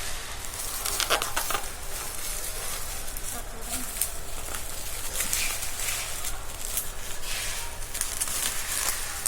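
Packaging being handled during an unboxing: irregular rustling and crinkling with scattered small clicks.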